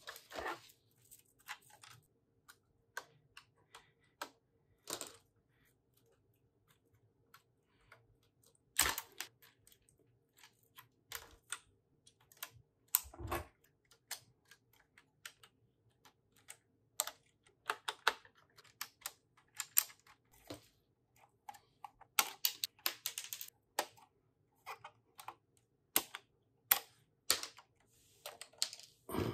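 Lego bricks being handled and pressed together: scattered sharp plastic clicks at uneven intervals, a few in quick runs.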